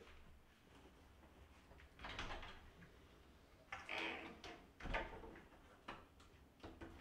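Quiet handling sounds at a closet: plastic hangers clacking and rustling on a wire closet rod in a few short bursts, then a couple of small knocks as the closet door is handled near the end.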